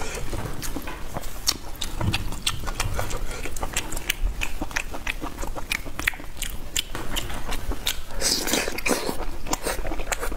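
Close-miked eating: biting and chewing with irregular wet clicks and smacks, and a louder, denser stretch about eight seconds in.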